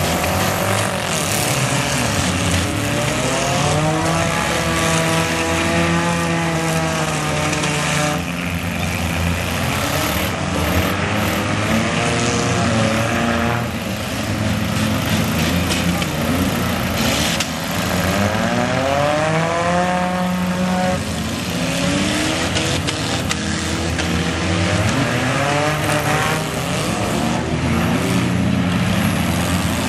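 Several small four-cylinder demolition derby cars' engines running and revving hard, their pitch climbing and falling again several times over a continuous engine din.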